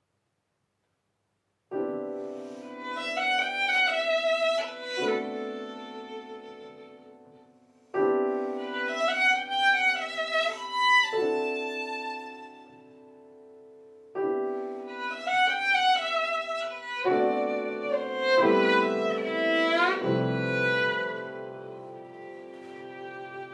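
Violin and grand piano playing a duet: after a moment of silence, three similar phrases, each opening with a piano chord under a violin melody with vibrato and then dying away, the last one with deeper piano bass notes.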